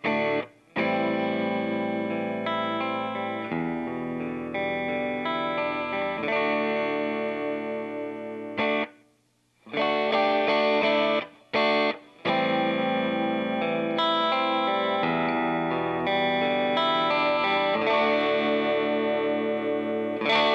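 Electric guitar played through an MXR Sugar Drive, a Klon-style overdrive pedal: overdriven chords ringing out, cut short by brief stops a few times.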